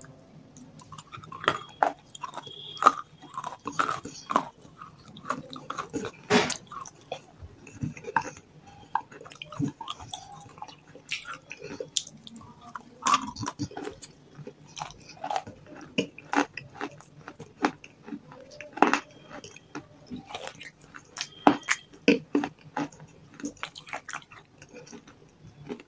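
Close-miked chewing of half-roasted grey clay lumps and wet clay paste (nakhumat): irregular crisp crunches and wet mouth clicks, one after another.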